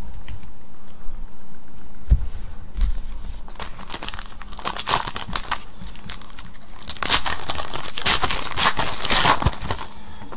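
A 2015 Panini Prizm Collegiate Draft Picks trading card pack wrapper is torn open and crinkled, a dense crackling from about four to nine seconds in. There is a single low thump about two seconds in.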